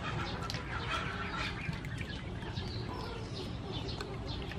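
Birds chirping, with scattered small clicks and a steady low rumble underneath.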